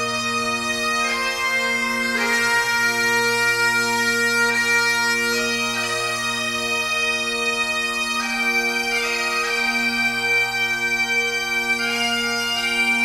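Bagpipe music: a slow melody played over steady, unchanging drones.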